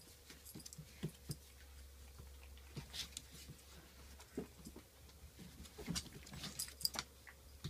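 Two small dogs, a pomapoo puppy and a pomeranian, scuffling as they play-fight. Faint scattered clicks of claws on a hardwood floor, with short low noises from the dogs.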